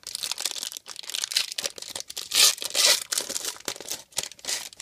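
Foil wrapper of a trading card pack crinkling and tearing as it is ripped open by hand, loudest about two and a half seconds in.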